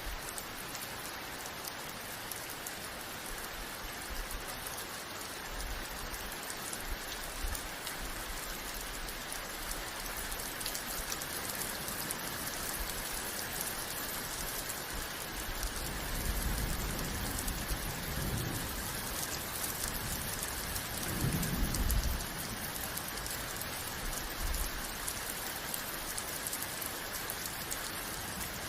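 Steady heavy rain falling, an even hiss of drops on surfaces. A low rumble of thunder builds past the middle and is loudest a few seconds later before fading back into the rain.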